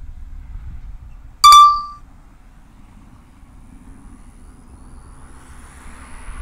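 A single loud electronic beep about one and a half seconds in: a clear ringing tone that dies away within half a second. It is heard over a low steady rumble.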